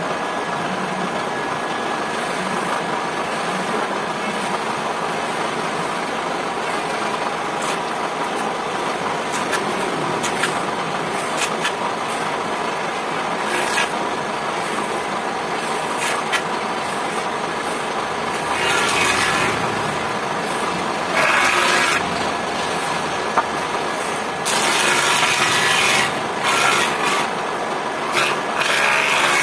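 Belt-driven wood jointer running with a steady hum while a board is fed over its cutter head. In the second half come four louder rasping bursts of cutting as the board is planed in successive passes.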